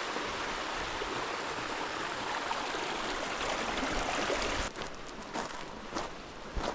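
Small creek rapids running steadily, a dense rush of water. About four and a half seconds in the rush cuts off suddenly, leaving a quieter water sound with a few scattered clicks and taps.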